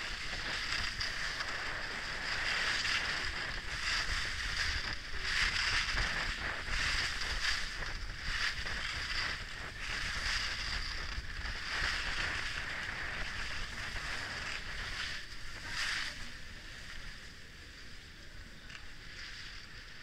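Skis sliding and carving on the artificial snow of an indoor slope: a steady scraping hiss that swells and fades with the turns, over a low rumble. It grows quieter for the last few seconds.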